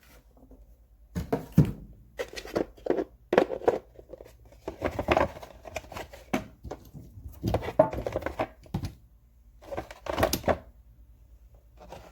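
Handling of a hard plastic tool case and the snap ring pliers inside it: a string of irregular clicks, knocks and rattles.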